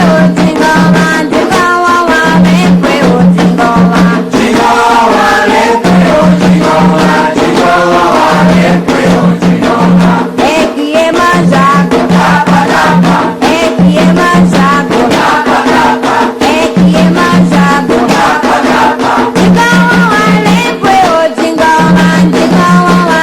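Candomblé sacred chant: voices singing over steady percussion with a shaker rattle, a repeating low note pattern recurring every couple of seconds.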